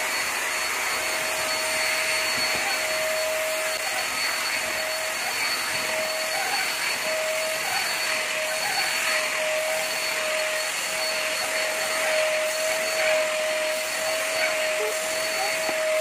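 MAXHEALTH vacuum cleaner running steadily: an even whine over a hiss of airflow as its floor nozzle is pushed over a rug.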